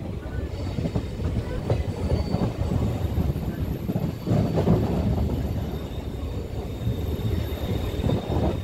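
Saptagiri Express passenger train running round a curve, heard from an open coach doorway: a steady rumble of wheels on the rails with a few irregular clacks over the rail joints and a thin, high wheel squeal.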